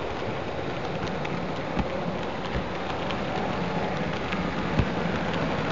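H0-scale model train running steadily on Märklin track, heard from a camera riding on it: a continuous rolling hiss and rumble with a few light clicks, likely the wheels passing rail joints.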